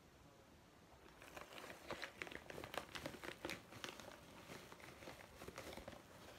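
Packaging being handled, giving a run of faint crackly crinkles that starts about a second in and stops shortly before the end.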